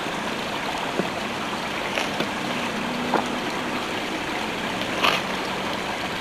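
Steady rushing of flowing water from a stream, with a few faint clicks over it.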